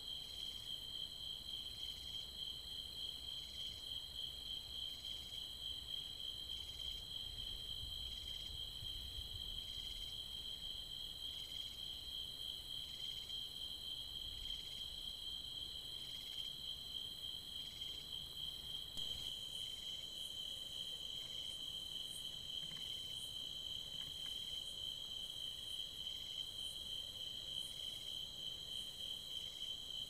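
A steady, high-pitched chorus of night insects trilling without a break.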